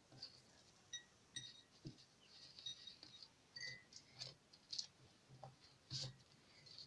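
Near silence broken by scattered faint clicks and light taps of a small glass bottle and kitchen things being handled while crushed garlic is covered with olive oil.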